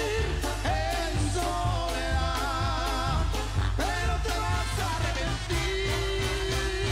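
Banda sinaloense (Mexican-style brass band) playing an instrumental passage: wind instruments carry a wavering, vibrato melody over a deep bass line and a steady drum beat.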